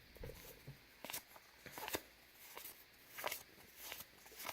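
Trading cards being flipped through by hand: a handful of faint, short swishes and clicks at irregular intervals as each card slides off the stack.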